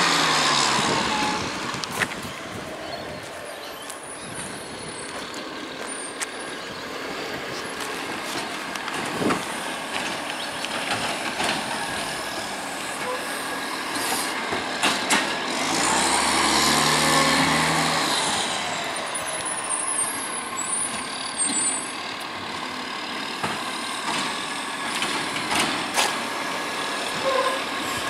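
2005 Iveco Acco garbage truck's diesel engine running as it drives off down the street. The sound swells and fades again about halfway through, with a few short sharp clicks along the way.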